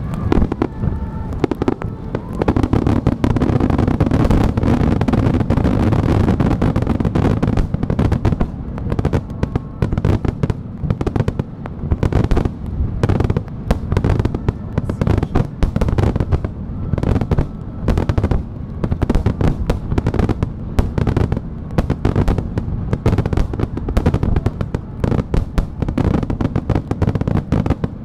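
Fireworks finale barrage: many aerial shells and rapid-fire starmine sequences bursting in a near-continuous run of loud bangs, densest in the first several seconds.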